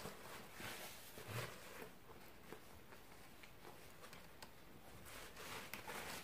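Faint chewing with the mouth closed, with the soft rustle of paper napkins being handled near the end.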